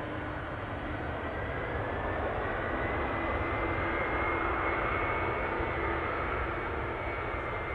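Jet engines of an Airbus A350 (Rolls-Royce Trent XWB) on the runway: a steady rumble with a whine that climbs in pitch and grows louder toward the middle, then eases slightly.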